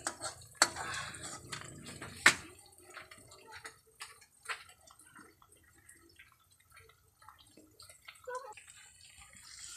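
Metal spatula scraping and knocking against a metal wok as fermented rice (buro) is stirred in oil, with one sharp knock about two seconds in, then only faint scattered clicks and light frying.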